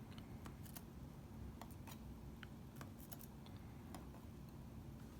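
Faint, scattered small clicks of metal lock parts being handled during disassembly, over a low steady hum.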